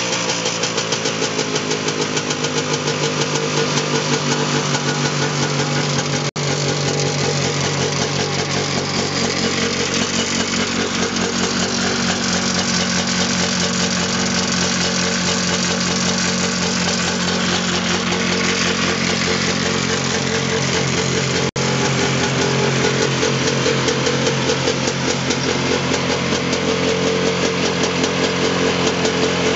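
1972 Ski-Zoom Rebel snowmobile's small two-stroke engine running steadily at a fast idle. It settles down in pitch over the first couple of seconds and picks up slightly near the end, with two momentary breaks in the sound.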